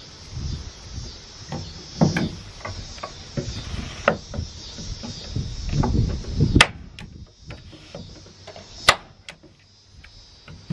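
Scattered knocks, rustles and clicks of carpet pieces and tools being handled in a wooden box, with two sharp clicks in the second half.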